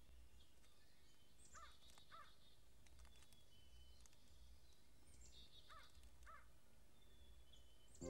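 Faint woodland bird calls: two pairs of short calls a few seconds apart, with a few high thin chirps between them.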